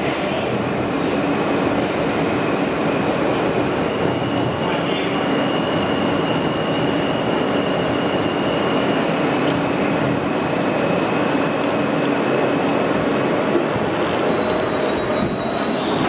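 Inside an R160A subway car running into a station: steady rumble of steel wheels on rail, with a high wheel squeal through the middle and another, higher squeal near the end.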